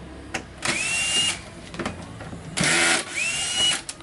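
Cordless drill-driver running twice, each run about a second long with a whine that rises in pitch and then holds, as it backs out the screws of a TV's plastic rear cover.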